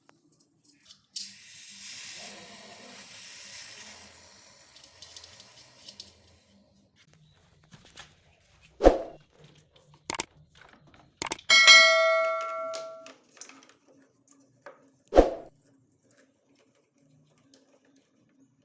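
Compressed air hissing out of a DeWalt pancake compressor for about five seconds. Then a few sharp knocks, and a metallic clang that rings for about a second.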